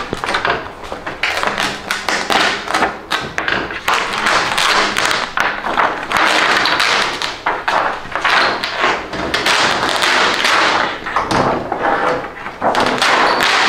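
Large thin plastic diffuser and reflector sheets from an LCD TV backlight being flexed and peeled back by hand: a continuous run of crackling and rustling mixed with taps and knocks against the metal backplate.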